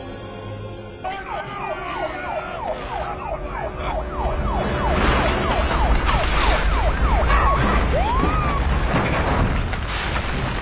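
Film sound mix. A held musical chord gives way, about a second in, to a rapid run of falling siren-like whoops, about two to three a second, with one rising-and-falling whoop near the end. Beneath them a deep rumble builds and grows loud.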